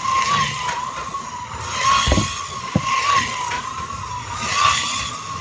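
Electric slot car motors whining steadily as the cars lap the plastic track, swelling louder as they pass close, with two short knocks about two seconds in.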